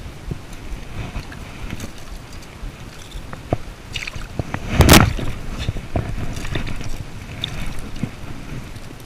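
A hooked largemouth bass splashing at the surface and being swung out of the water onto the rock, a sudden splash about five seconds in that is the loudest moment, over a low steady rumble.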